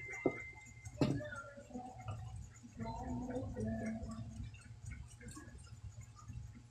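Two sharp cracks about a second apart, the second louder with a short thud, typical of joints cracking under hilot manipulation of the back. Low voices follow.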